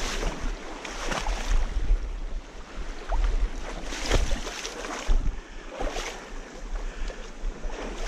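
Water splashing and sloshing in irregular surges every second or two, as of feet wading through a shallow river, with wind rumbling on the microphone.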